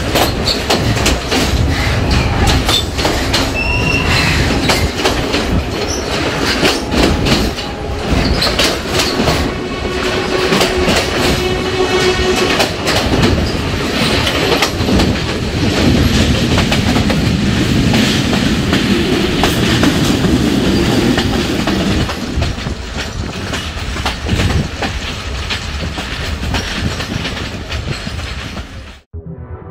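Passenger train carriages running on the rails, heard through an open window: a steady loud rattle and clickety-clack of wheels over the track, with a couple of brief high wheel squeals in the first half. For a stretch it runs through a rock tunnel. The sound cuts off suddenly near the end.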